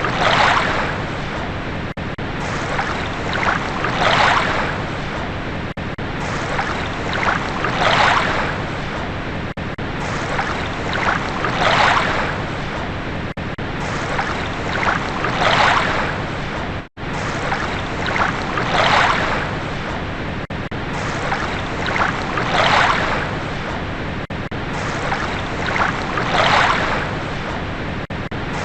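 Ocean waves washing onto a shore, a surge about every four seconds over a steady wash. The sound cuts out for an instant about seventeen seconds in.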